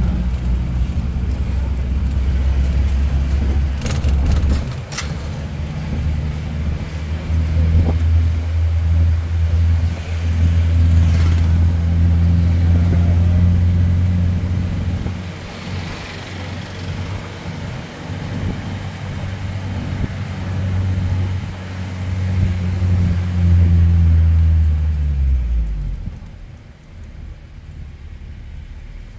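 Car engine and road noise heard while driving, a steady low drone that sags briefly a few seconds in and falls away about 26 seconds in as the car eases off. A few sharp clicks sound about four seconds in.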